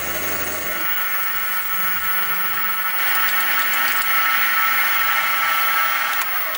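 Sieg SX2P mini-mill running with its end mill facing a mild steel block: a steady motor whine mixed with the noise of the cut, getting louder about three seconds in.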